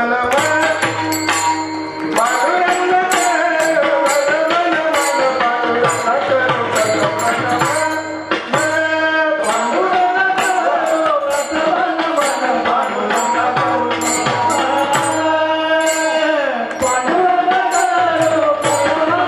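A man sings a Marathi kirtan melody into a microphone in a gliding devotional style. He is accompanied by held instrumental tones and hand percussion keeping a steady beat.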